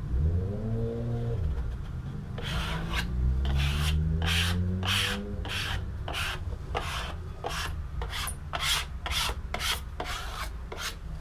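Squeegee swiped again and again over a soapy-wet clear grip film on a kneeboard, pressing it down and working out the water, about two strokes a second from a couple of seconds in. A low hum that rises in pitch runs underneath during the first half.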